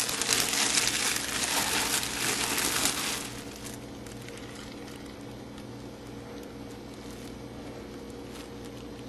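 Heat-proof plastic slow-cooker liner bag crinkling as it is handled and pulled at, for about the first three seconds. After that only a steady low hum is left.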